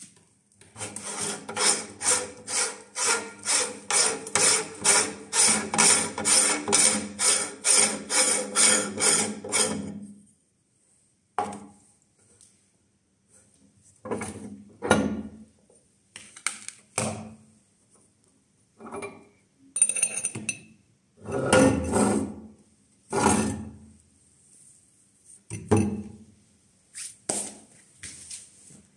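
Meat grinder working sponges: a rhythmic grinding and creaking about twice a second for roughly ten seconds, then stopping. After that it comes in short, separate bursts of grinding with pauses between them.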